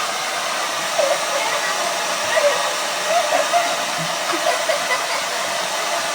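Handheld hair dryer running steadily, a continuous blowing rush. Short wavering sounds break through it every second or so.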